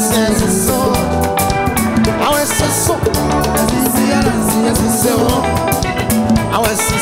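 Live band music with a steady drum beat.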